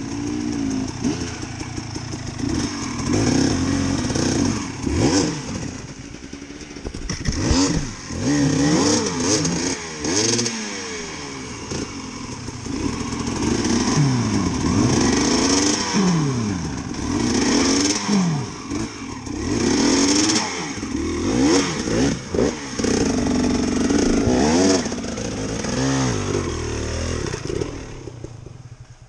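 Dirt bike engine revved hard again and again, pitch rising and falling in bursts of a second or two, as the bike struggles to climb out of a deep ditch where it is stuck. A few knocks and clatters sound in between, and the engine noise drops away just before the end.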